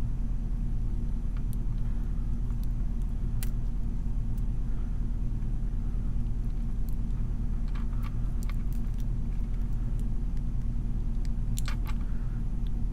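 Steady low background hum, with a few faint, sparse metallic clicks and ticks of a lock pick and tension wrench working the pins inside a heavy brass padlock.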